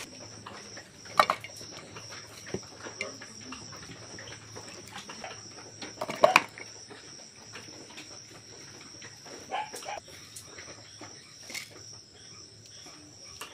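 Steady high-pitched trilling of crickets. A few sharp knocks sound over it, the loudest about a second in and around six seconds in, as cut potato and onion pieces drop onto a ceramic plate.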